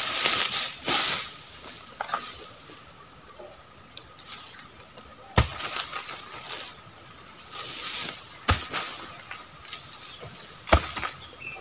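Steady high-pitched insect drone with a fainter lower hum beneath it. In the first second a palm frond is dragged and rustles, and three sharp knocks fall about 5, 8½ and 11 seconds in.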